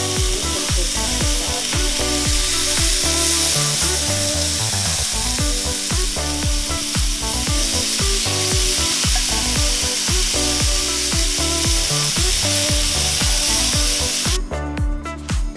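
Marinated chicken pieces frying in a hot pan, sizzling steadily, with background music underneath. The sizzling cuts off about a second before the end, leaving only the music.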